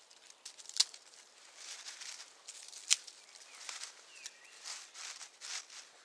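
Close rustling and handling noises of hands working in dry leaf litter at the base of a birch tree, with two sharp clicks, one about a second in and one about three seconds in.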